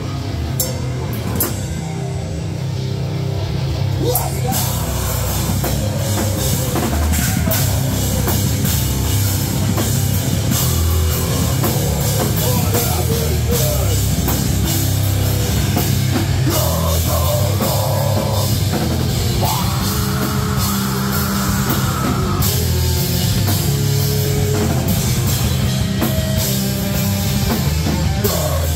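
A live heavy rock band playing: drum kit, electric guitar and bass guitar. The full band comes in louder about four seconds in.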